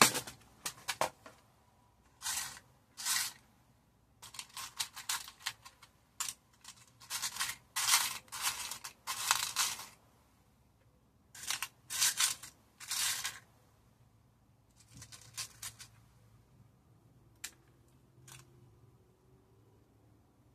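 Clear plastic compartment organizer boxes of small gems and embellishments being handled: bursts of rattling and clicking as the boxes are moved and rummaged through, growing sparser, with two light single clicks near the end.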